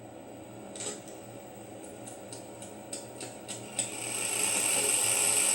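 Pet snake hissing: a run of short, sharp puffs of hiss, then from about four seconds in a louder, long, steady hiss.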